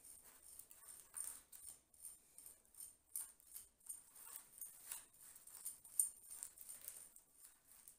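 Metal fork raking through a seedling's root ball, a faint run of quick, irregular scratches as the tines comb soil and roots loose, with bits of grit dropping onto the plastic tray.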